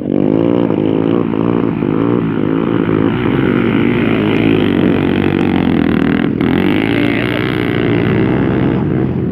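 Motocross bike engine revving, its pitch rising and falling quickly over and over, then running at a steadier high pitch for the rest.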